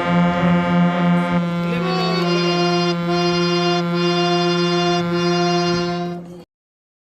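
Harmonium reeds sounding a held chord. A low note is sustained throughout while the upper notes change about a second and a half in, and the sound cuts off abruptly near the end.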